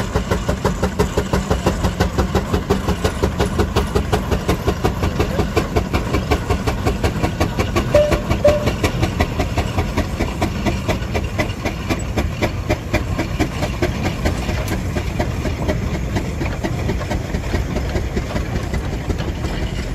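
Steam engine running, its exhaust beating in a steady, quick rhythm.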